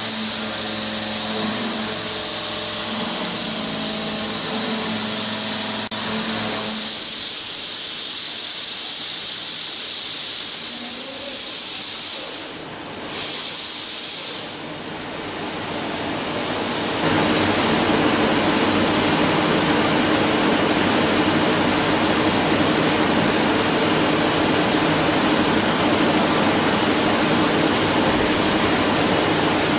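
Horizontal milling machine with its spindle running and a face-milling cutter working a pocket in a metal block, a steady machine tone over a constant loud hiss. About 7 s in the tone stops and the hiss carries on alone, dipping briefly; about 17 s in a louder, fuller rushing noise with a low hum takes over.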